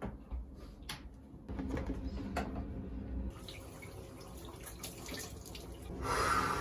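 A few sharp clicks and knocks, then a tap running into a bathroom sink from about halfway, growing louder with splashing near the end as water is used to wash the face.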